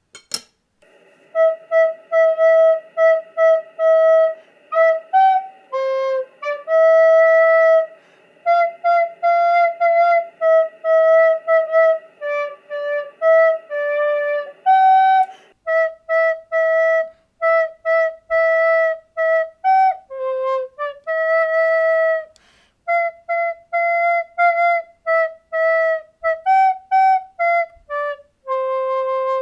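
A melody on a flute-like wind instrument: short, mostly repeated notes with a few brief slides between pitches. A faint steady noise sits under the notes for the first half and stops about halfway through.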